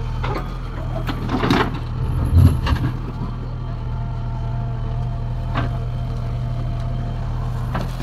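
JCB 3DX backhoe loader's diesel engine running steadily under load while the backhoe bucket digs into stony soil, with scattered knocks of the bucket on rock, the heaviest about two and a half seconds in.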